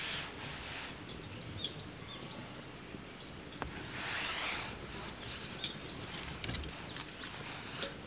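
Small birds chirping in short calls, over a wood fire burning with scattered crackles and pops.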